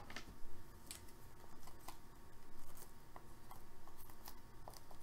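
A marker writing on shrink-wrapped trading-card boxes: a run of short, irregular scratches and clicks, the sharpest just at the start.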